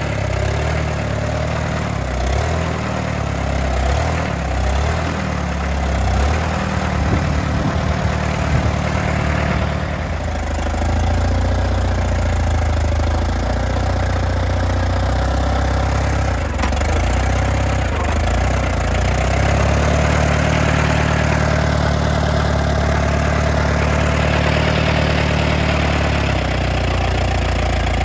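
1956 Allis-Chalmers Model B tractor's four-cylinder engine running at low speed. The engine note shifts a few times as the tractor is moved.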